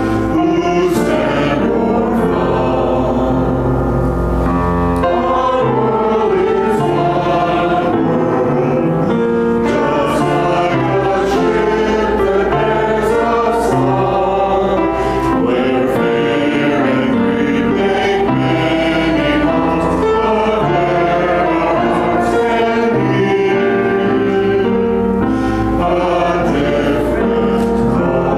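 A small choir of men's and women's voices singing a hymn.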